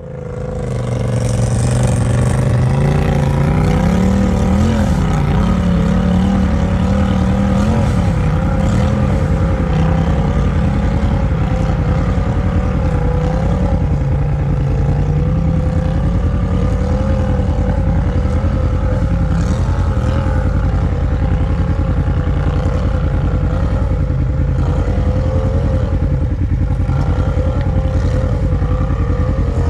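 Polaris RZR side-by-side's engine running steadily at low revs, its note wavering slightly, heard from inside the cab; it fades in over the first second or two.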